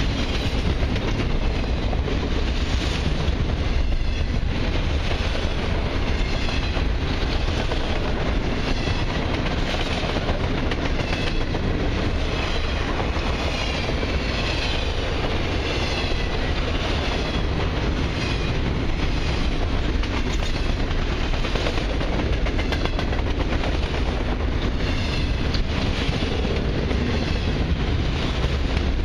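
Autorack freight cars rolling past close by: a steady, loud noise of steel wheels running on the rails, with repeated clicks as the wheels pass over the track.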